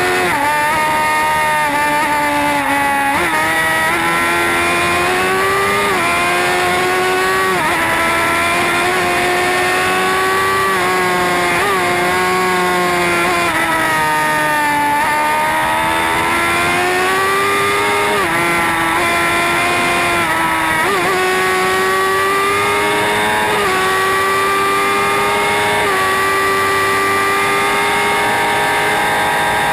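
Sportbike engine pulling hard at high revs, its pitch climbing and then dropping sharply at each upshift, several times in a row, with a brief easing off partway through. A rush of wind runs under it.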